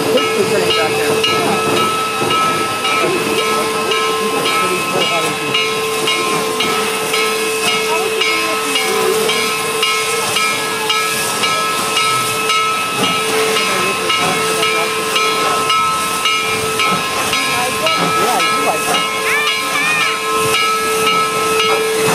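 2-8-0 steam locomotive No. 734 blowing off steam: a steady, loud hiss with a held tone underneath it.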